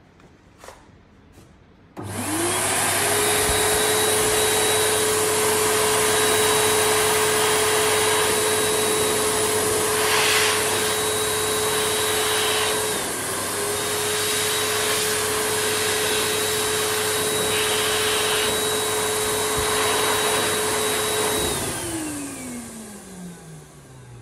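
FEEGOO FG2630T high-speed hand dryer switching on about two seconds in and drying wet hands: a loud rush of air over a steady motor whine. Near the end it cuts off and the whine falls in pitch as the motor winds down.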